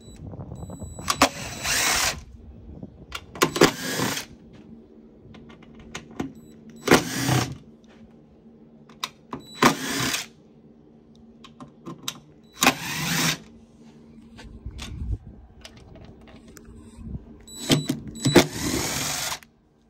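DeWalt cordless drill/driver backing out the screws of an inverter's front cover: six short runs of the motor whining, each a second or less, with small clicks of handling between them; the last run, near the end, is the longest.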